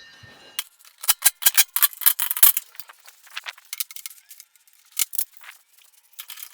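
A quick run of sharp metallic clicks and clinks, dense for about two seconds from half a second in, then sparser.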